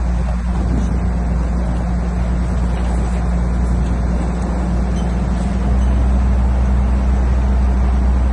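Heavy diesel engine of construction machinery running steadily, its pitch and level stepping up slightly a little over halfway through as it is throttled up.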